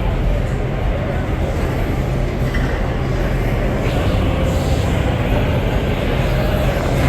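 Roller coaster train rumbling along its steel track, heard from on board as a loud, steady rush of noise.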